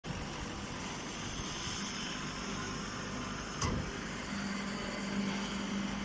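Hydraulic hay baler running: a steady machine drone from its motor and hydraulic pump, with one sharp knock about three and a half seconds in and a steady hum joining a little after four seconds.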